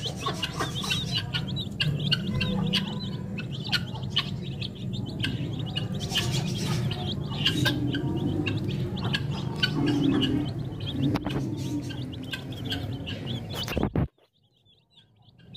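A flock of young domestic chicks peeping continuously in many quick, high, overlapping cheeps, over a steady low hum. The sound cuts off about a second and a half before the end.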